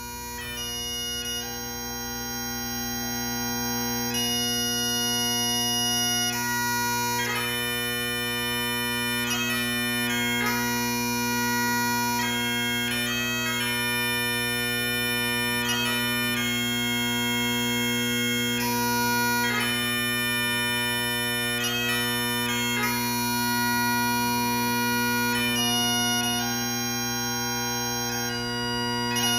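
Bagpipes playing a tune over a steady, unbroken drone. The sound swells up over the first few seconds, then holds.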